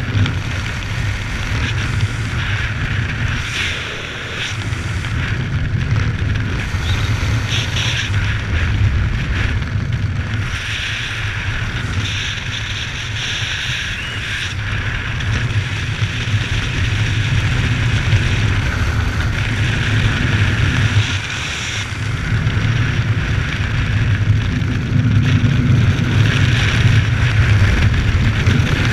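Wind buffeting the microphone of a camera carried by a skydiver flying under an open parachute canopy: a steady loud rush with a low rumble, swelling and easing every few seconds.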